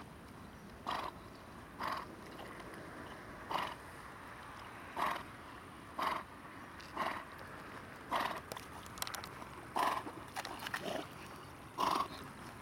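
Dogo Argentino breathing hard through its nose while swimming with a toy in its mouth: short, sharp puffs of breath about once a second.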